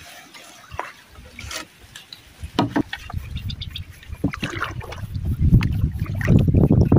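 A wooden paddle stroking through river water from a small wooden canoe, with water splashing and sloshing against the hull. A few sharp knocks come in the first three seconds, and the paddling grows louder from about four seconds in.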